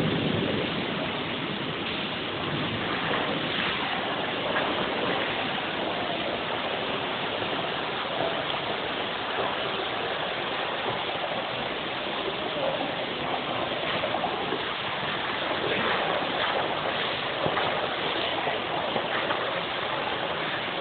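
Rainwater from a heavy downpour, rushing and splashing steadily over a flooded tiled walkway.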